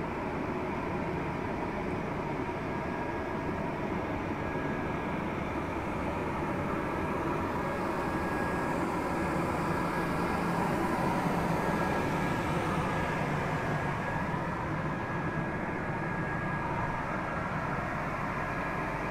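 Electric inflatable blower running steadily, a continuous fan hum as it inflates the inflatable slide through its fill tube; a little louder around the middle.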